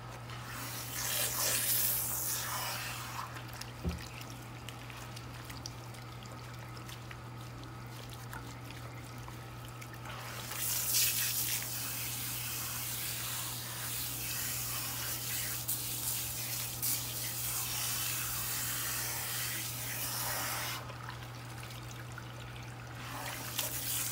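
Water running from a salon shampoo-bowl sprayer onto wet hair and splashing into the basin as the hair is rinsed. The water gets louder for a couple of seconds near the start and again from about ten seconds in until near the end, over a steady low hum.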